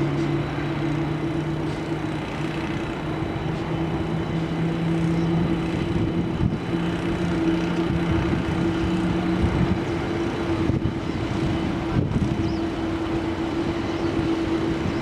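Boeing 777-300ER jet airliner running steadily with a continuous drone and low hums; the lower hum stops about ten seconds in.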